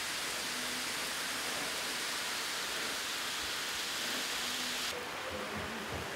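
Steady hiss that cuts off abruptly about five seconds in, giving way to faint room chatter.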